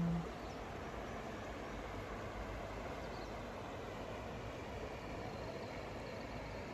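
Steady, even rush of a river flowing over its bed, heard faintly as night ambience. A short low hum sounds right at the start.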